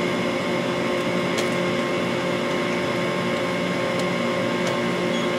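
Hinge-belt chip conveyor of a Mori Seiki NL-2500 CNC lathe running: a steady mechanical hum with a few faint clicks.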